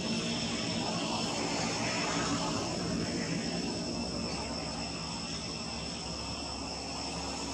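Steady ambient drone of insects: a continuous high whine over a low, even rumble that grows a little stronger about halfway through.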